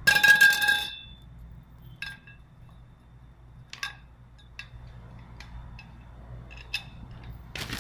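Metal trampoline frame parts clinking together as they are handled and fitted: one loud ringing clank at the start, then a run of lighter taps and clicks, and another knock near the end.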